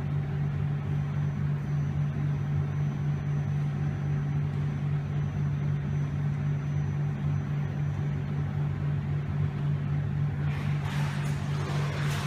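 Steady low hum of the pool hall's machinery. From about ten seconds in, splashing of water grows as a dog swims up the lane toward the near end of the pool.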